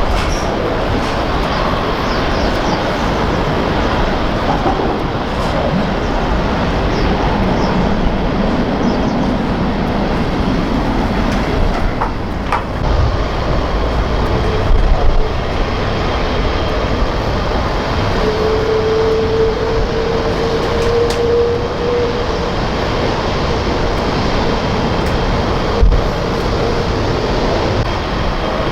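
Aircraft jet engines running, a loud steady rumble, with a faint whine that comes in about halfway through and fades a few seconds later.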